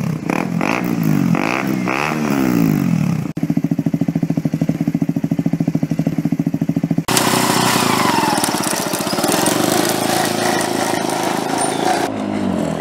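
Engine sound revving up and down several times, then a steady fast throbbing idle, then a loud rushing noise with a falling pitch. Near the end a go-kart engine revs on the skid pad.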